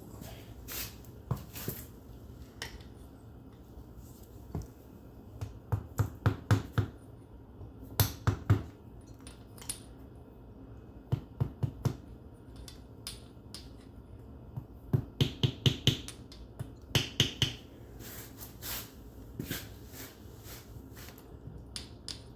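Hand tool clicking in short quick runs of four to six clicks, several times, in keeping with a ratchet wrench turning bolts on a lawn tractor's transaxle case.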